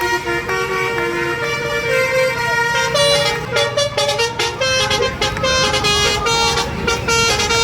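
Several buses' basuri telolet horns, multi-note musical air horns, playing tunes over one another. Held notes step from pitch to pitch, then about three seconds in the horns break into a dense run of quick, choppy notes.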